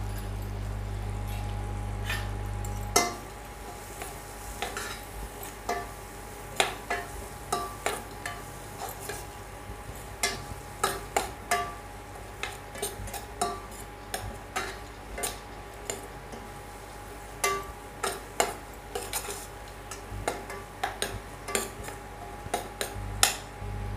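Steel spatula stirring, scraping and knocking against a stainless steel kadai as onion, tomato and spices fry in oil, with irregular sharp clinks one to three times a second. A steady low hum runs underneath, a little quieter after about three seconds.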